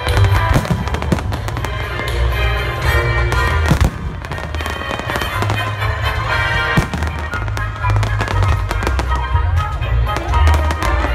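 Aerial fireworks shells bursting in rapid succession, many sharp reports a second, over loud music with a heavy bass from the pyromusical soundtrack.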